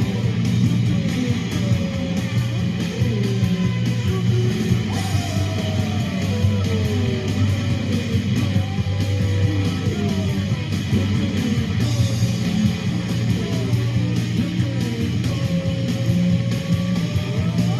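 Loud, distorted electric-guitar rock music, with notes that bend and slide up and down over a steady heavy low end.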